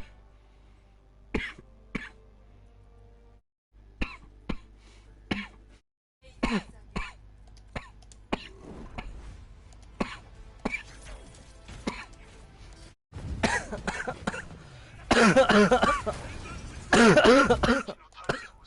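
A person coughing hard: single coughs spaced a second or so apart at first, coming more often from about six seconds in, then building into a long, loud coughing fit near the end.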